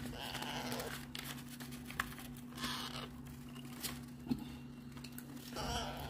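Baby parrot chicks giving short, raspy calls three times, each under a second. A steady low hum runs underneath, with a few light taps.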